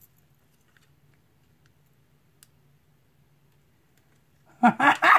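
A few faint, sharp clicks as fingernails pick at heat-transfer vinyl lettering and its plastic carrier sheet on a fleece blanket. Near the end a woman breaks into a loud, excited exclamation.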